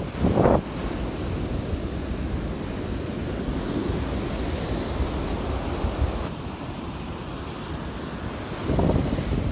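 Gulf of Mexico surf washing onto a sandy beach, with wind buffeting the microphone, louder gusts near the end.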